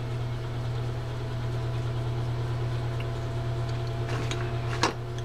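Steady low electrical or mechanical hum in a small room, like a fan or appliance running. Near the end come a couple of light clicks of small metal parts or a tool being handled on the bench.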